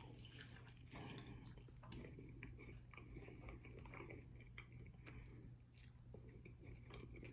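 A person biting into and chewing a crunchy hard-shell taco of ground beef and melted cheese: faint, irregular crackling crunches throughout.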